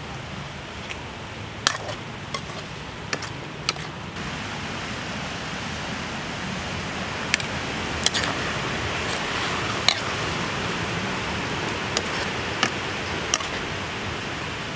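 Liquid sizzling and simmering in a steel wok over a wood fire, with scattered sharp clicks of the metal ladle against the pan as the vegetables are stirred. The hiss grows louder about four seconds in.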